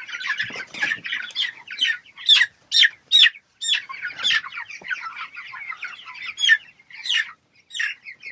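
Young chickens, about four weeks old, calling together in short high peeps. Several loud, sharp peeps stand out through the middle.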